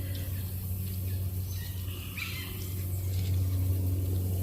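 Outdoor wetland ambience: a steady low hum with a few faint, brief high bird chirps in the middle; no owl hoot.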